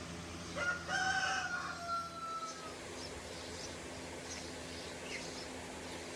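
A rooster crowing once: a short opening note, then a long drawn-out note that falls slightly and fades. Faint high chirps follow.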